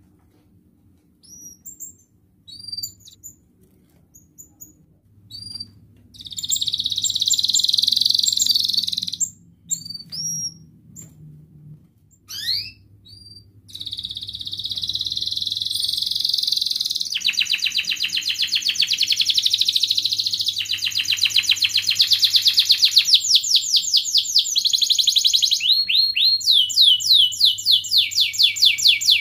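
Domestic canary singing: a few short separate rising chirps at first, then long rolling trills of fast repeated notes that switch to a new phrase every few seconds.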